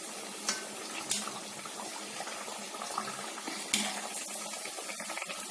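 Wheat-flour and pumpkin fritters deep-frying in hot oil: a steady sizzle with a few sharp clicks.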